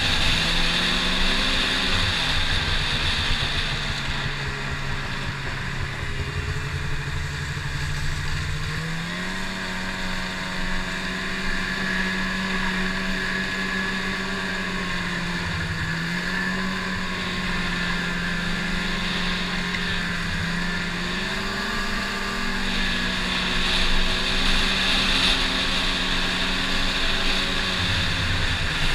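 Snowmobile engine running under way, a steady drone whose pitch steps up with throttle about nine seconds in, eases off around sixteen seconds, rises again after twenty seconds and drops back near the end.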